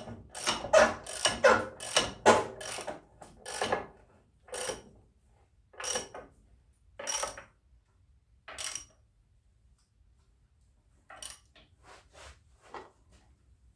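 Ratchet clicking in repeated strokes while a bolt is run in. The strokes come quickly at first, then thin out to about one a second, stop for a couple of seconds, and a few more follow near the end.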